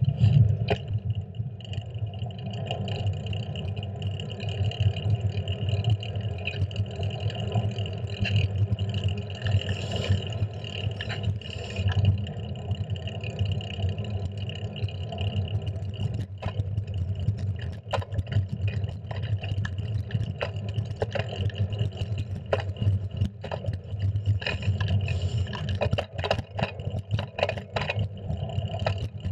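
Wind and road noise on a handlebar-mounted GoPro's microphone as a fixed-gear bicycle rides along a street: a steady low rumble with frequent sharp clicks and rattles, more of them in the second half.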